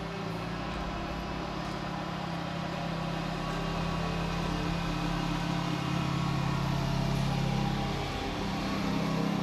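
All-terrain vehicle engine running steadily and slowly growing louder as it approaches, with a brief dip in pitch and level about eight seconds in.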